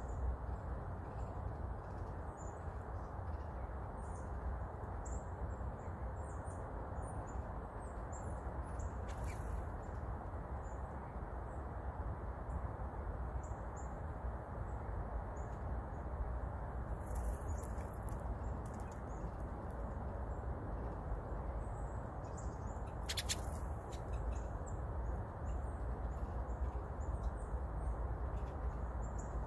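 Small songbirds chirping faintly, short high notes scattered all through, over a steady low outdoor rumble. A few sharp clicks stand out in the middle and later on.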